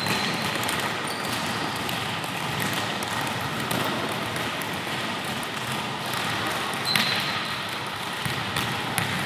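Many volleyballs hit and bounced at once on a wooden gym floor, a steady patter of overlapping ball impacts, with a couple of short high squeaks.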